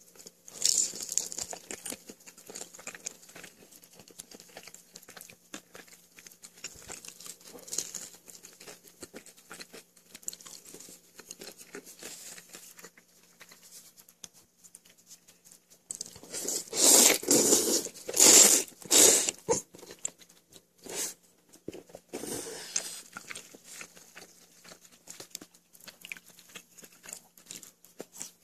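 Close-up eating sounds: chopsticks clicking against a bowl, and crunching and chewing of fried pastry. A run of loud, rough crackling bursts comes about two-thirds of the way through.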